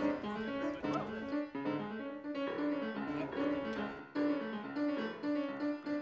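Solo piano playing a melody, a new note about every half second.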